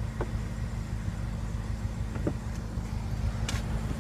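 A car engine idling steadily, a low even hum, with a few faint clicks about every second or so.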